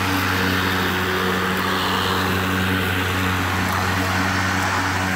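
EGO battery-powered lawn mower running steadily, its motor and spinning blade giving an even hum with a rushing whir over it.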